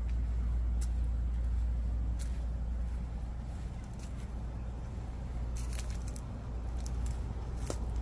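Steady low rumble from a handheld phone microphone carried outdoors, with a few sharp clicks of handling noise scattered through it.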